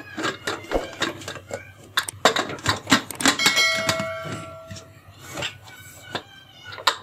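Aluminium pressure cooker lid being fitted and twisted shut on the cooker: repeated metallic clicks, scrapes and knocks of the lid against the rim. A ringing clang rises about three and a half seconds in and fades over a second or so.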